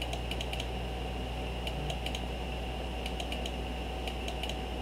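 Computer mouse button clicked in quick bursts of three or four clicks, four bursts about a second and a quarter apart, over a steady electrical hum.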